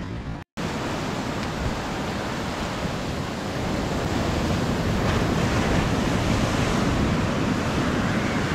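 Sea surf washing onto the beach, a continuous rushing noise with wind on the microphone, growing a little louder about halfway through.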